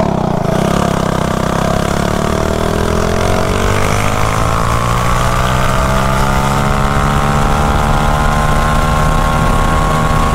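Harbor Freight Predator 212cc single-cylinder mini bike engine, running on M5 methanol race fuel, pulling at full throttle on a top-speed run, its pitch climbing steadily as the bike accelerates past 70 mph. Wind rushes over the rider's chin-mounted microphone.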